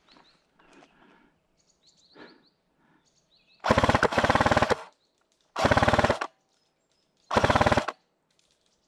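Airsoft replica firing three full-auto bursts of rapid BB shots: a longer burst of about a second near the middle, then two short ones about a second and a half apart.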